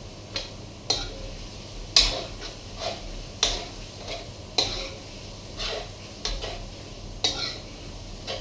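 A cooking utensil scraping and knocking against a pan as a thick curry is stirred, in short irregular strokes about one or two a second.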